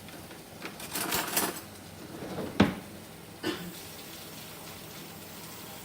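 Kitchen utensil handling at a pot of drained pasta as butter goes in: a brief scraping rustle about a second in, then a sharp clink at about two and a half seconds and a softer knock a second later.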